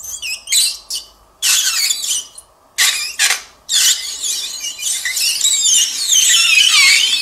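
Hydrogel water beads boiling off against a red-hot metal ball, giving high-pitched warbling squeals and hiss. Short bursts come each time the ball touches the beads, then the squealing runs almost unbroken from about four seconds in as the ball is pressed down among them.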